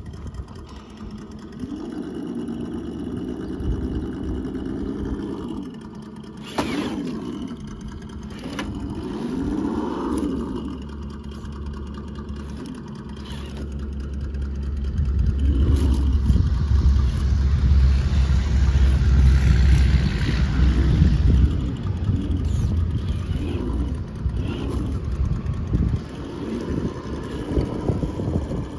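Scale RC crawler's electric motor and gears whining, the pitch rising and falling in short pushes as the throttle is worked over wooden planks, with a sharp knock about a quarter of the way in. A low rumble swells through the middle and is the loudest sound.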